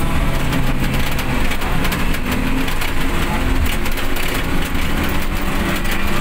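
Steady cabin noise of a van driving on a rain-soaked road: the engine running and tyres on wet tarmac, with a dense crackle of rain hitting the roof and windscreen.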